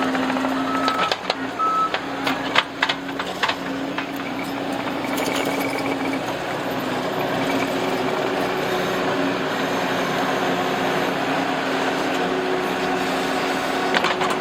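Case TR270 skid steer's diesel engine running steadily under work, its backup alarm giving three short beeps in the first two seconds, with several sharp knocks in the first few seconds.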